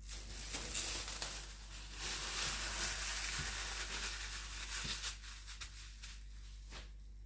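Plastic cling film crinkling as it is stretched and pressed around a ball of dough, thinning to scattered crackles about five seconds in.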